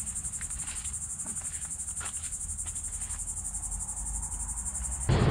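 Insects trilling: a steady high-pitched drone that pulses rapidly and evenly, with a few faint ticks. A loud rush of noise cuts in right at the end.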